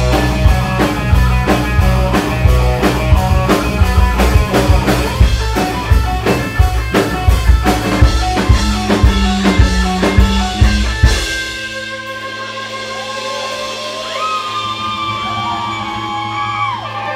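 Live rock band playing electric guitars, keyboard and drums. About eleven seconds in the drums stop, and a held low note rings on under electric guitar notes that bend up and down in pitch.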